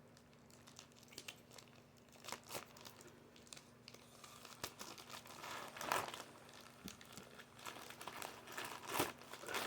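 Parcel packaging being crinkled and torn open by hand: faint, scattered rustles and crackles, the loudest about six and nine seconds in.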